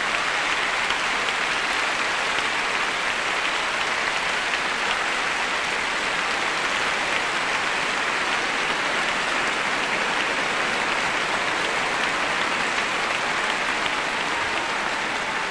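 Large concert audience applauding steadily, a dense, even clapping with no breaks.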